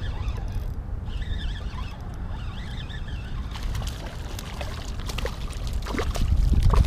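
A hooked snook thrashing and splashing at the water's surface beside a kayak, with sharp splashes coming thick from about halfway through and growing louder near the end.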